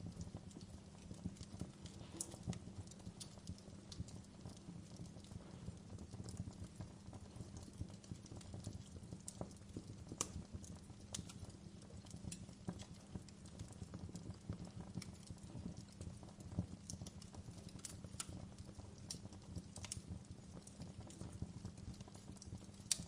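Wood fire crackling in a fireplace: irregular sharp pops and snaps, a few louder ones, over a steady low rumble.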